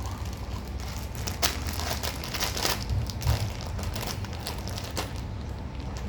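Irregular crinkling and rustling: several short scrunches of crinkly material, over a steady low hum.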